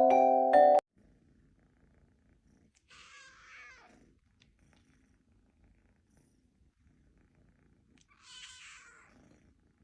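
Xylophone-like music cuts off under a second in, leaving a cat purring faintly, with two short breathy noises about three and eight seconds in.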